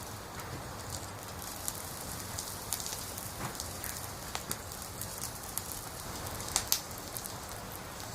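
Wood fire burning, a steady hiss with scattered crackles and pops; two sharper pops come about two-thirds of the way through.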